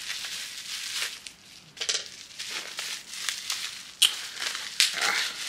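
Plastic packaging and bubble wrap crinkling and rustling as a package is opened by hand, with a couple of sharp clicks near the end.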